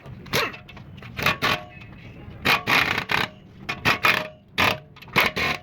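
Metal scraping and clinking in about a dozen short, irregular strokes, some leaving a brief metallic ring.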